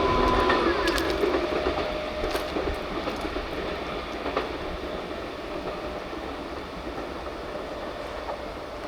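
Kintetsu Nara Line electric train passing over a level crossing and pulling away, its wheel clatter fading steadily, with a few sharp wheel clicks in the first few seconds.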